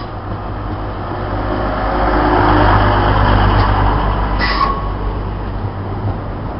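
Class 185 diesel multiple unit moving through the station, its diesel engine's low drone and running noise swelling to a peak about halfway and then easing. A brief high tone sounds about two-thirds of the way through.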